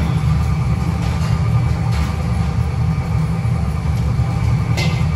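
Steady low rumble of a commercial kitchen's extraction hood and ventilation running, with a sharp knock near the end.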